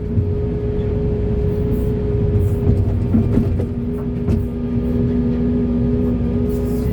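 Heavy earthmoving machinery running: a steady diesel rumble with a steady whine held over it, and a few light clicks.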